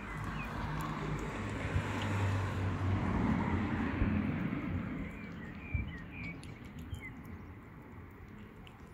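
A motor vehicle passes, its engine hum and road noise swelling and fading over the first few seconds. Several short bird chirps follow later.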